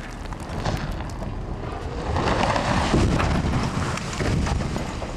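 A 700-ton, 145-foot reactor exhaust stack toppling after its base was blown with dynamite and crashing to the ground: a deep rumble that swells about two seconds in, is loudest around three seconds, and dies away near the end, with a few sharp cracks of breaking debris.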